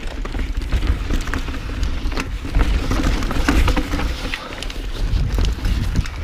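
2015 Santa Cruz Nomad mountain bike riding down a dirt forest trail: tyres crunching over dirt, roots and rocks, with frequent clicks and rattles from the bike and a low rumble of wind on the microphone.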